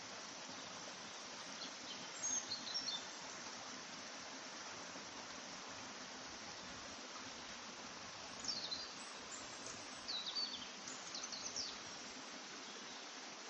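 Steady background hiss, with short high chirps twice: a brief cluster near the start and a longer run in the second half.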